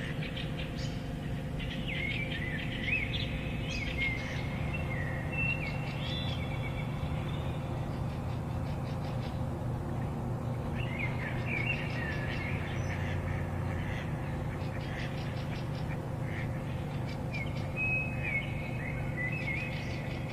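Songbirds singing in woodland: three bouts of short warbled song phrases with quick rising and falling notes, one near the start, one about halfway and one near the end. A steady low hum runs beneath.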